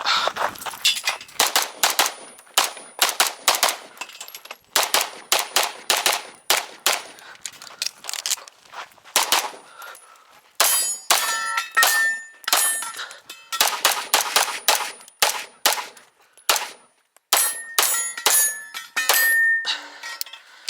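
Rapid strings of pistol shots from a Limcat Phantera HBAR open-division pistol firing 9mm Major, with short pauses between strings. In the second half, metallic ringing clangs sound after many of the shots.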